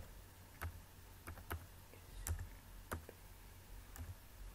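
Computer keyboard typing: a handful of separate keystrokes at an uneven pace, faint.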